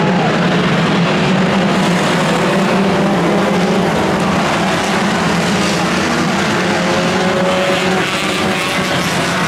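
A pack of 1600cc banger racing cars running hard around an oval, many engines revving over one another in a steady, loud din.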